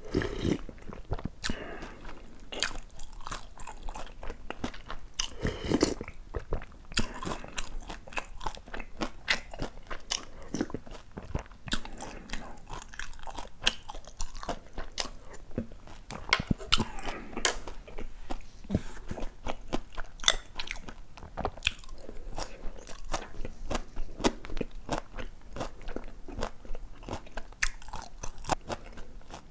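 Close-miked eating: steady chewing with wet mouth clicks and crunches, and spoonfuls of cold noodle broth sipped and slurped, one right at the start and more about 6 and 17 seconds in.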